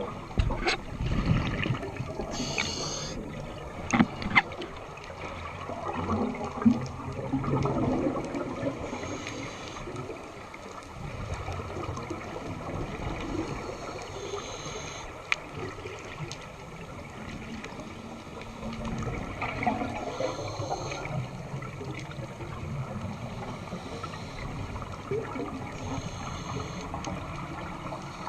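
Underwater sound of a scuba dive: bubbles from a diver's regulator gurgling in bursts about every five to six seconds, over a steady low water rumble, with a few sharp clicks.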